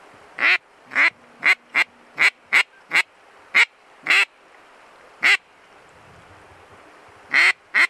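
Duck quacking: about a dozen loud single quacks, each falling in pitch, in an uneven run that pauses for about two seconds near the end.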